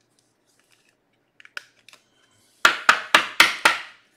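A few faint clicks, then five quick, sharp knocks on a hard surface, about four a second, near the end.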